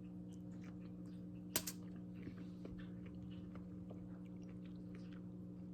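A person quietly chewing a mouthful of roasted jalapeño and its seeds: faint, scattered mouth clicks, with one sharper click about a second and a half in, over a steady low hum.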